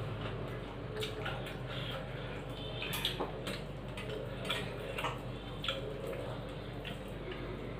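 Hands mixing and eating rice from steel plates: small wet squelches and scattered light clicks of fingers against the metal, over a steady low hum.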